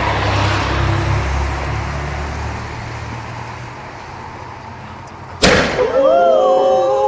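A car passes with a low rumble that fades over the first few seconds. About five seconds in, a firework set on the street goes off with one sharp bang, followed at once by several people crying out.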